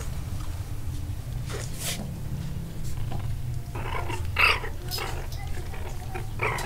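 A puppy making a few short noises while it is handled, the loudest about four and a half seconds in, over a steady low hum.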